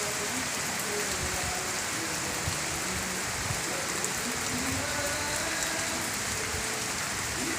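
Heavy rain pouring down steadily, an even hiss of a downpour with no let-up.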